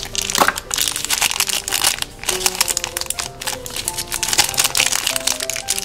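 Clear cellophane wrapper crinkling and crackling in the fingers as a small toy is unwrapped from it, over a light plucked background tune.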